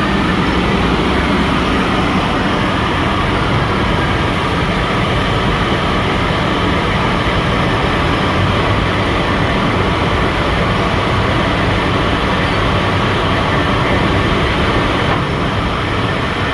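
Machinery running steadily: a continuous mechanical hum and rush with faint steady tones, unchanging throughout.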